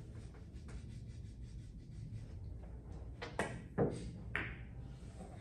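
Pool shot: a cue strikes the cue ball and billiard balls clack together, four sharp clicks within about a second, starting about three seconds in, over quiet room tone.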